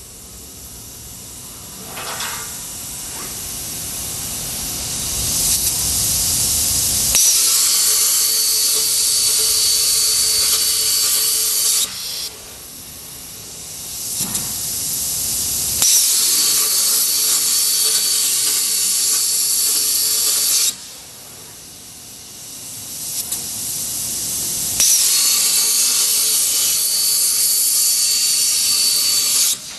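Plasma cutter running in three spells, a loud steady hiss with a thin high whine in it. Each spell builds up over a few seconds and then cuts off suddenly.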